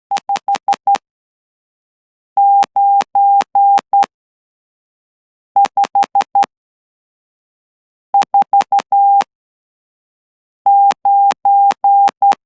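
Morse code sent by hand on a straight key at about 12 words per minute, heard as a single steady sidetone beep keyed into dits and dahs. There are five characters of five elements each, spaced apart like number-group practice.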